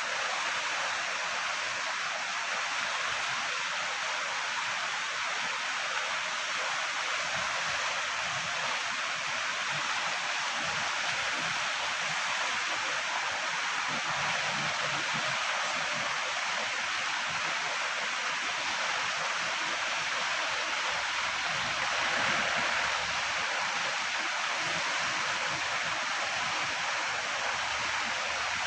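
Steady rushing of river water, a constant even hiss with no breaks, swelling slightly about three-quarters of the way through.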